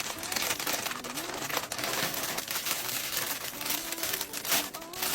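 Packaging being handled and opened, crinkling and rustling in a close, continuous run of crackles.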